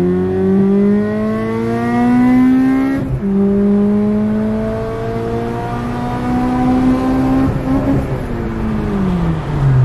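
Honda Civic's four-cylinder engine under hard acceleration, heard inside the cabin: the revs climb steadily, drop at a manual upshift about three seconds in, and climb again. Near the end they fall away steeply as a gear is missed.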